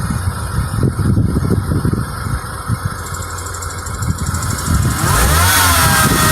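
2011 Mini One engine running, with the intermittent ticking that does not follow engine speed and has so far defied diagnosis. About five seconds in, a whine sweeps down and then holds steady over a louder hiss.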